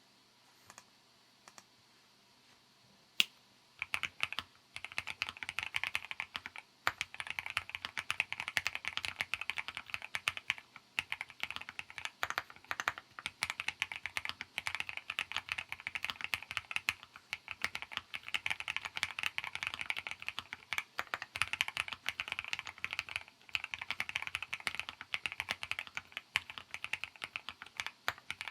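Typing on a Sea75 custom mechanical keyboard: a few faint clicks, one sharp keystroke about three seconds in, then steady fast typing with brief pauses.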